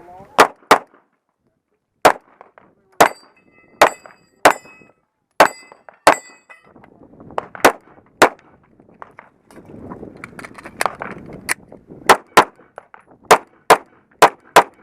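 Glock 19 9mm pistol fired in a string of shots, mostly in quick pairs with pauses between groups. Several hits ring on steel targets in the first half.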